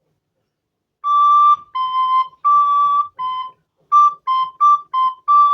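Soprano recorder playing the beginner exercise D–C–D–C–D–C–D–C–D: nine clean notes alternating between two pitches a step apart, four slower notes and then four quicker ones, ending on a longer D.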